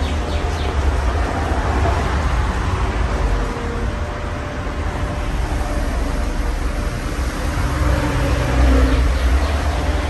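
Casablanca California Zephyr ceiling fan running with five South Seas blades: a steady rush of moving air over a low, uneven rumble, with a faint steady hum.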